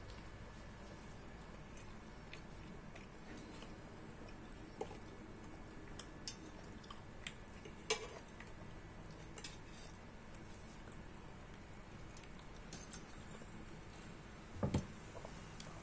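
Scattered light clicks and clinks of a metal fork and spatula against a metal pan, over a low steady hum, with a louder double knock near the end.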